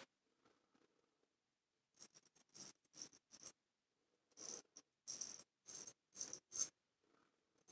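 Straight razor scraping stubble off the chin through shaving-soap lather: about a dozen short strokes in two quick runs, starting about two seconds in.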